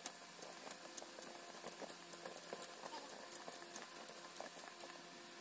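Spanner working the tappet cover bolts on a Tata Cummins diesel engine: a run of light metallic clicks, several a second and somewhat uneven.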